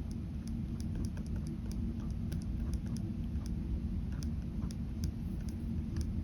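Ballpoint pen drawing on paper: quick, short strokes heard as light, irregular ticks, several a second, over a steady low hum.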